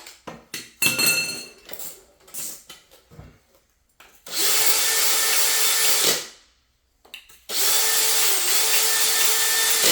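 A small electric power tool runs in two steady bursts of about two and three seconds, cleaning the end of a freshly cut copper pipe, after a few knocks of the pipe and tool being handled.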